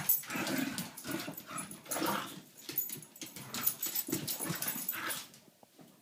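Two dogs play-fighting, with growls and scuffling in irregular bursts that stop about five seconds in.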